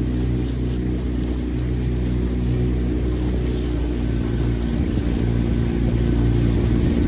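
Motorboat's outboard engine running steadily as a low, even hum.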